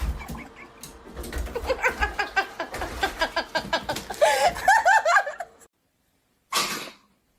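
A person laughing in quick, repeated bursts that stop suddenly, followed by a short burst of noise.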